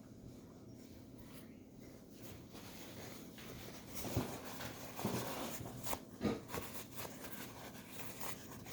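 Faint rustling and a few soft knocks from things being handled, over a steady low room hum; the handling comes about four to six seconds in.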